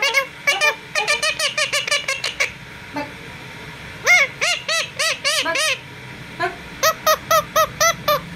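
Pet green parakeet squawking: short, sharp calls in quick runs of several a second, coming in four bursts with short pauses between.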